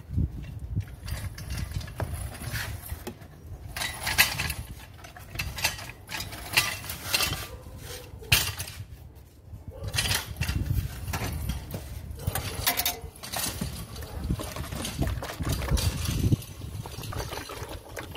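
Car engine running, a low uneven rumble, with irregular clinks and knocks over it.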